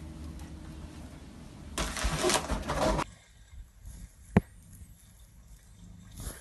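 Foil party balloon crinkling and rustling loudly for about a second as a cat pushes against it, then after a sudden drop a quiet stretch with one sharp click.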